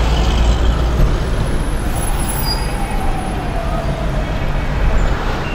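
A car in motion heard from inside its cabin: steady engine and road rumble, with the noise of city traffic around it.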